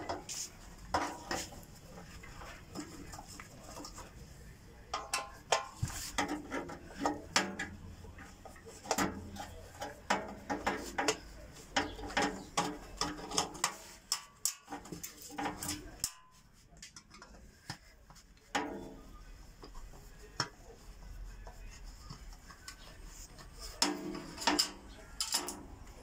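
Metal clattering and clinking from a screwdriver working at a microwave's sheet-steel panel, in irregular bursts of sharp knocks with short ringing, quieter for a few seconds past the middle.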